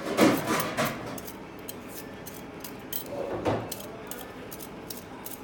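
Metal swivel vegetable peeler scraping the skin off a raw potato in quick, short rasping strokes.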